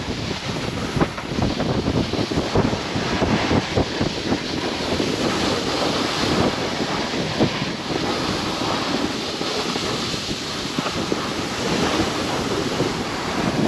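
Wind rushing over the microphone while a snowboard slides and scrapes through slushy spring snow, with a steady rush and many small scrapes.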